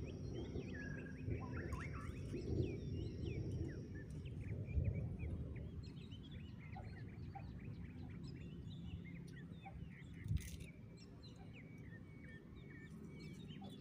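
Birds chirping throughout: many short calls that rise and fall in pitch, over a steady low rumble of outdoor background noise. A single sharp knock about ten seconds in.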